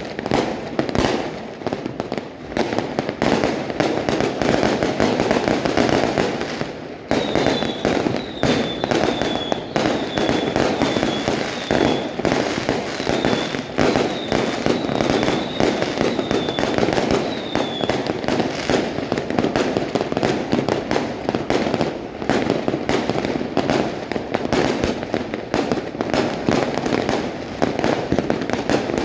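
Many fireworks and firecrackers going off at once: a continuous barrage of overlapping bangs and crackling. Through the middle stretch a string of about a dozen short, high, falling chirps repeats above the barrage.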